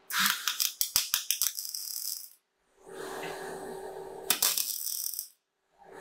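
Everlast Cyclone 262 MIG welder's arc crackling in three short bursts while tacking a tube to a plate, stopping briefly between them. The first burst opens with a run of sharp pops.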